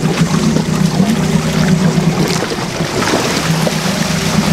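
Boat engine running with a steady low drone while trolling, under wind noise and the wash of the sea, with water splashing alongside as a hooked coho salmon thrashes at the surface.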